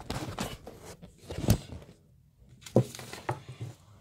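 Hands handling things on a table close to the microphone: scratchy rustling and scraping with a few sharp taps and knocks.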